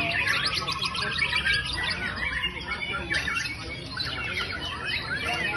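White-rumped shama (murai batu) singing a varied song of rapid trills and sweeping whistled notes.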